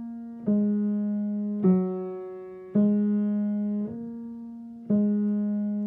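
Piano playing a simple beginner melody with the left hand on three black keys, softly: single notes struck one after another about once a second, each held and fading until the next, five in all.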